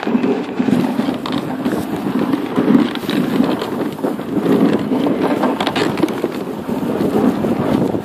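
Dog sled moving over snow, pulled by a husky team: a steady scraping rush from the runners with scattered sharp crackles.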